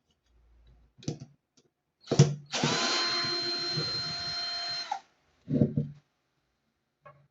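A small electric motor spins up and runs at a steady speed for about two and a half seconds, then stops abruptly. Knocks from handling come just before it starts and just after it stops.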